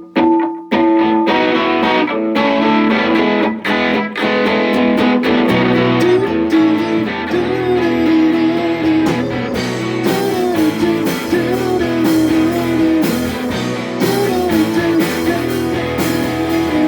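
A live rock band starting a song: a guitar plays the opening alone, and the rest of the band, bass included, comes in about five seconds in and fills out further around ten seconds in.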